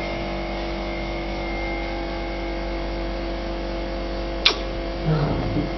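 Steady electrical hum made of several fixed tones, with one sharp click about four and a half seconds in.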